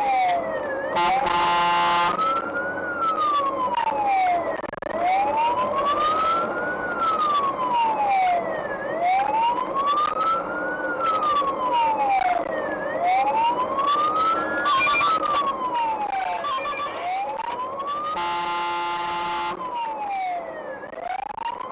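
Fire engine's siren wailing on a call, rising and falling in pitch about every four seconds, heard from inside the cab. Two short horn blasts sound over it, one near the start and one near the end.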